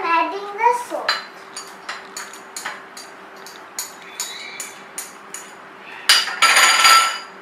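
Metal spoon clinking and scraping against a small glass bowl while flour and salt are stirred, with light taps of a glass saucer, a string of sharp ringing clicks. About six seconds in comes a louder, longer clatter with ringing. A brief child's voice is heard at the start.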